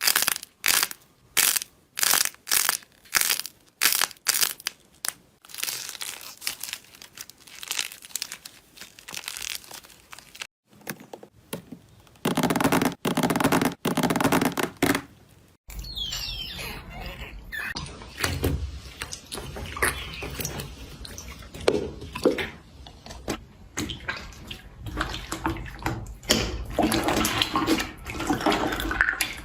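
Slime being handled in a run of short clips. First comes a series of crisp crunching squeezes, about two a second, then denser squishing, then a loud continuous crackle for a few seconds. About halfway through it changes to softer, wetter squishing and stretching over a low hum.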